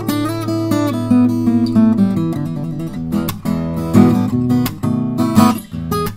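Morris F52 acoustic guitar (solid spruce top, Brazilian rosewood back and sides) played fingerstyle: a plucked melody over bass notes, moving into fuller chords with sharp percussive strokes in the second half.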